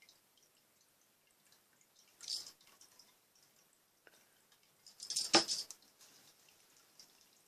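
Slime being worked so that air bubbles pop in it: a short crackly burst of pops about two seconds in and a louder one just past five seconds, with faint small wet clicks between.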